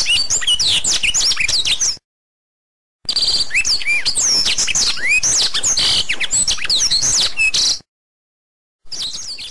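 Several birds chirping and twittering rapidly, with quick high sweeping calls. The recording stops dead about two seconds in and again near the end, with a second of total silence each time before it resumes.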